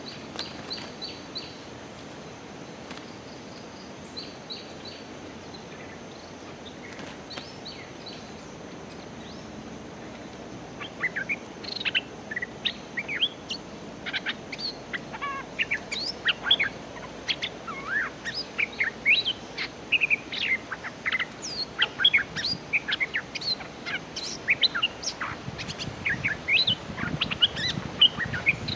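Merbah lekir bulbuls calling in their fighting call: a few faint runs of quick high pips, then from about a third of the way in a dense stream of loud, rapid, sharp chattering calls.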